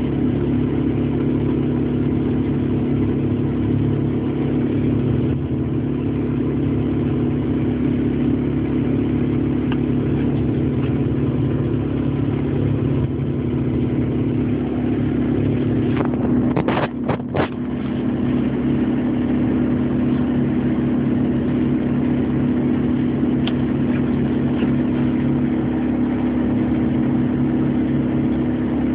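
A 4x4's engine and road noise heard from inside the cabin while driving, a steady drone. There are a few sharp clicks about 17 seconds in.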